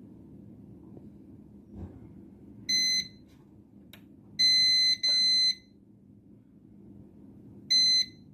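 Four high-pitched electronic beeps of one steady tone from a small piezo beeper, uneven in length and spacing: a short one, two longer ones close together, and a short one near the end, with a light click in between.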